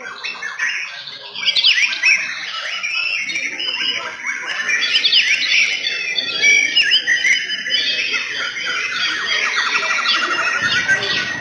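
Several white-rumped shamas (murai batu) singing at once in a song contest: a dense tangle of rapid, varied whistles and sweeping notes, with a fast trill about seven seconds in.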